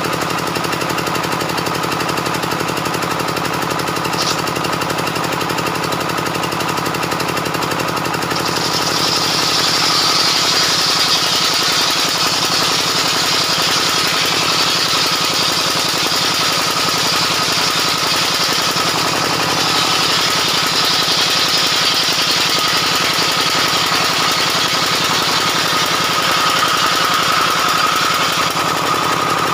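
Home-built bench circular saw with a 24-inch blade ripping a timber beam lengthwise, its drive engine running steadily underneath. About eight seconds in, the blade bites into the wood and a loud high hissing whine of cutting sets in, lasting until just before the end.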